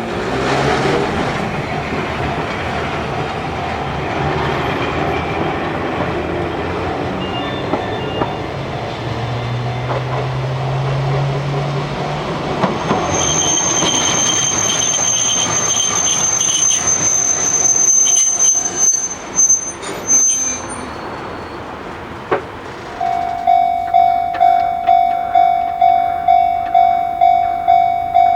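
Train running past with loud rolling noise, its wheels squealing in a high, steady screech for several seconds in the middle. As the train noise dies down about 23 seconds in, the railway level-crossing warning bell rings clearly, about two strokes a second.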